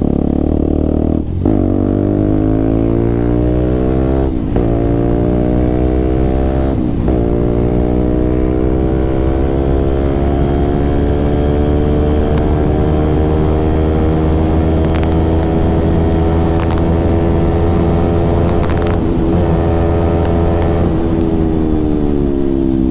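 KTM RC 200's single-cylinder four-stroke engine through an aftermarket SC Project-style full-system exhaust, accelerating hard through the gears. Three quick upshifts in the first seven seconds, then a long steady pull at high revs, easing off near the end.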